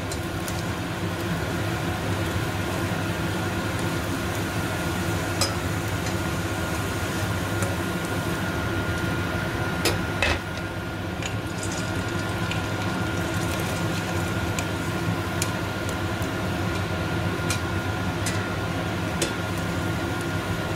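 Kitchen cooker-hood extractor fan running with a steady hum and a thin high whine, over hot frying oil. A few sharp clinks of a metal spatula against the steel pot, the loudest about ten seconds in.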